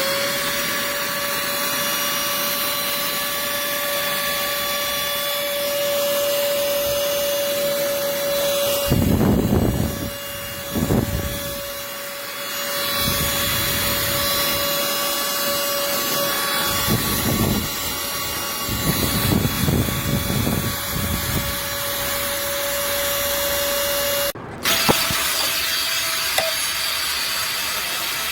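Small cordless handheld vacuum cleaner motor spinning up to a steady high whine, with several louder rushing spells while it runs. It cuts off suddenly about 24 seconds in.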